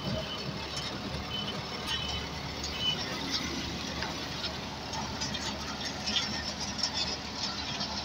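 Steady low hum of engines running at a roadworks site, from road machinery and passing vehicles, with scattered light clatter.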